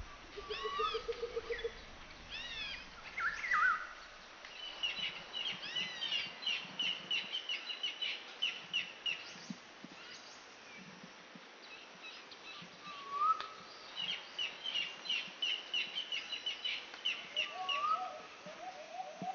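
Wild birds calling: two long runs of quick, evenly spaced high chirps, with scattered shorter whistled and rising calls between them.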